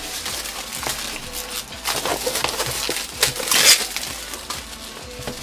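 Cardboard and plastic packaging being opened by hand, with a knife used on the box: irregular scrapes, rustles and taps, with louder scraping bursts about two seconds in and again past three seconds.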